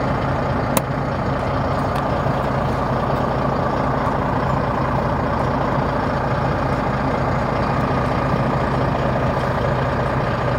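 Volvo FH16's 16-litre straight-six diesel idling steadily, heard from inside the cab, with a single sharp click about a second in.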